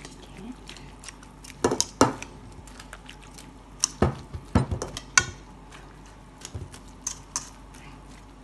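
A kitchen utensil clinking and scraping against a stainless steel mixing bowl while cubed bread, sausage and cheese are stirred together. The knocks come irregularly, with the loudest clusters about two seconds in and again around four to five seconds in.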